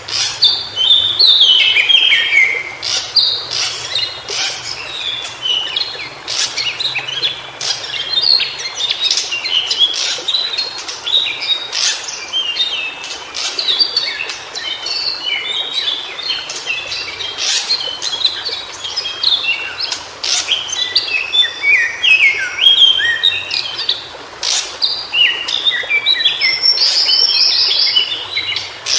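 White-browed shortwing singing: quick jumbled phrases of short notes that slide up and down in pitch, repeated with brief breaks between them, with many sharp clicks scattered through.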